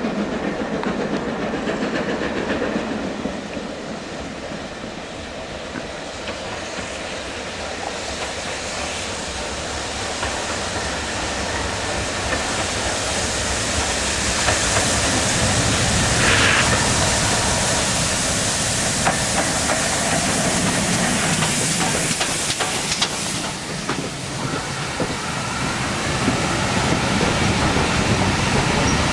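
Steam locomotive approaching with its train, the sound building over the first half, then the coaches rolling past close by with wheels clicking over the rail joints.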